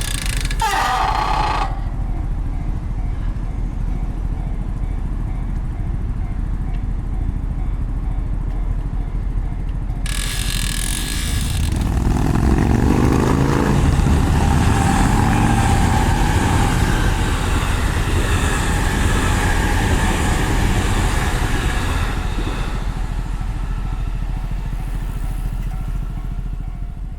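Road traffic passing a moving bicycle. About twelve seconds in, a motor vehicle accelerates with its engine pitch rising and grows louder for several seconds, over steady low road and wind noise.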